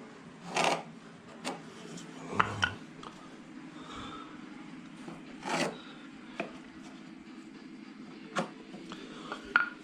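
Pieces of wood being handled and fitted: scattered light knocks and clicks, with two longer scraping slides, one about half a second in and one about five and a half seconds in.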